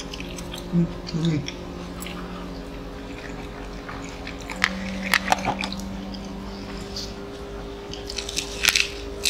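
Close-miked chewing and crunchy bites of fried kimbap, with a cluster of sharp crunches near the end as fresh lettuce leaves are bitten.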